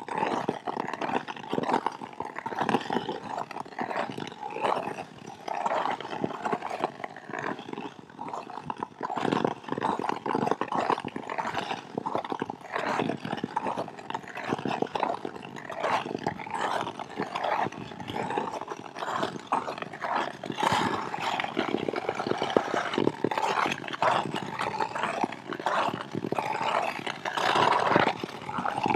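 Ice skate blades scraping and gliding over rough, snow-dusted natural ice, in a continuous run of irregular strokes.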